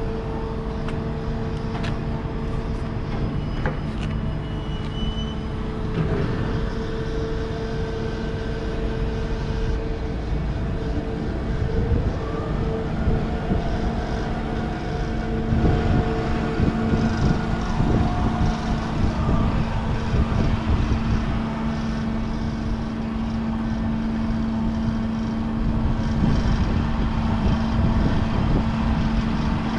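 Steady hum of idling diesel trucks and container-crane machinery, with occasional knocks and louder rough stretches.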